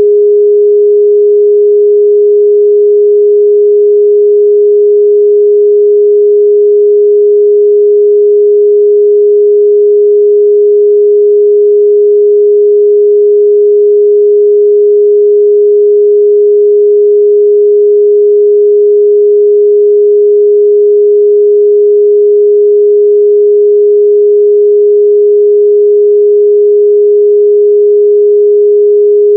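Steady, loud 414 Hz sine-wave test tone: a single pure pitch held unchanged throughout.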